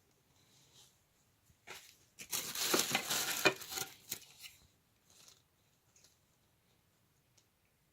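Packaging being handled and torn open: one loud rustling, tearing burst about two seconds in that lasts around two seconds, with small faint rustles around it.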